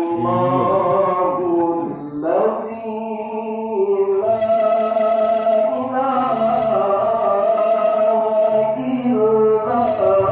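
A solo voice reciting the Quran in the melodic tilawah style, holding long ornamented notes that slide between pitches.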